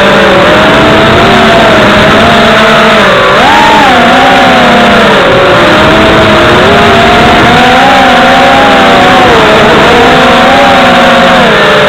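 FPV racing quadcopter's brushless motors and propellers whining, loud and continuous, the pitch swinging up and down as the throttle changes.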